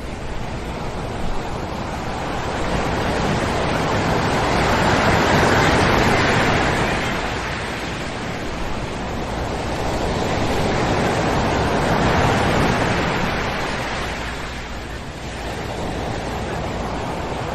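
Ocean surf breaking and washing up on a sandy beach, a steady rush that swells twice, about five and twelve seconds in, and eases between.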